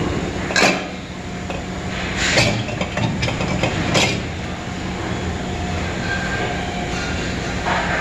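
Fridge compressor cutting machine running with a steady hum, with three sharp metal knocks as a sealed refrigerator compressor is handled and set into the machine's steel clamping chuck.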